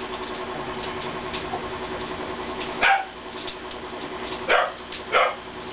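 A dog barking three short times, the first about three seconds in and the last two close together near the end, over a steady low hum.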